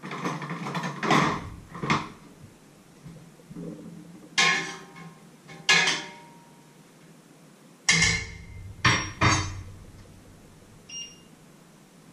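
Metal pots, lids and kitchen utensils clattering and knocking in a handful of separate bursts, some strikes ringing briefly, with a small clink near the end.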